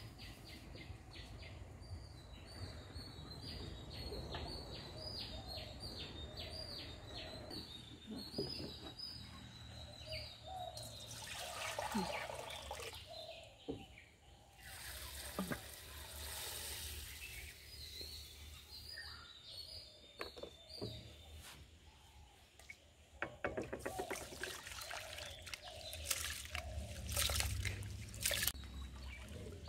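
Raw rice and water being poured into a metal basin, then rice being washed by hand in a metal strainer standing in water: loud splashing, swishing and trickling near the end. A fast, even run of high chirps sounds in the background for about the first ten seconds.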